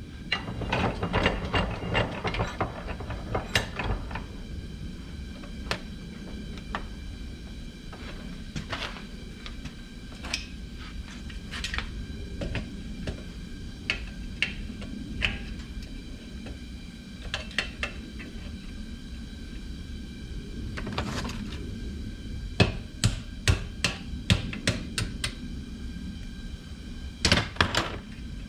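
Irregular metal-on-metal hammer taps and knocks, with handling clatter, as a pin is driven out of a 1955 Chevy heater control clamped in a bench vise. The taps come in clusters, thickest in the first few seconds and again in the last third.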